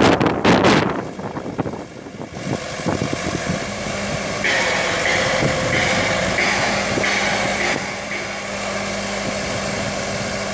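Boom lift truck's engine running steadily, with wind buffeting the microphone for about the first second. A higher whine joins from about four and a half to eight seconds in.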